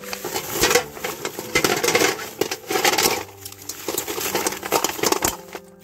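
Hard oyster shells clattering, knocking and scraping against each other in irregular bursts as a pile of them is handled, with short lulls between.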